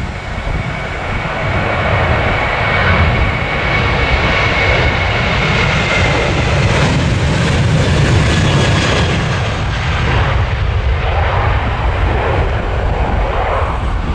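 Boeing 737-800's CFM56-7B turbofan engines at take-off power as the airliner rolls past and lifts off: a loud jet roar with a high fan whine that sags slightly in pitch, loudest in the middle, then a rumble as it climbs away.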